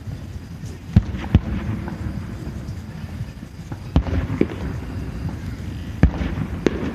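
Fireworks going off: about six sharp bangs, roughly in pairs a half-second apart, at intervals of a few seconds, over a steady low background rumble.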